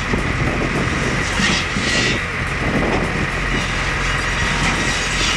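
A heavy machine's engine running steadily, with short bursts of hissing noise about a second and a half and two seconds in.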